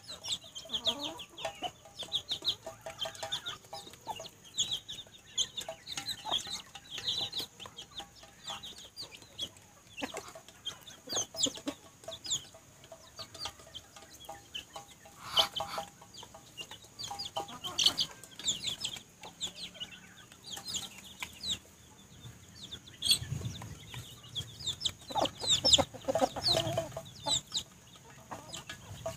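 Chickens feeding from a steel bowl: low clucking and the high, rapid peeping of chicks, with occasional sharp taps of beaks pecking the bowl.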